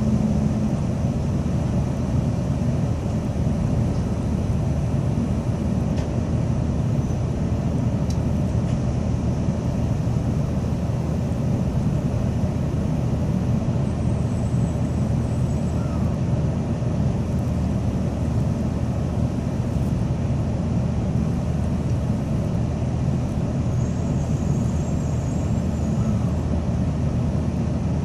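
Tokaido Shinkansen Kodama train running at speed, heard inside the passenger cabin: a steady low rumble of wheels, track and air.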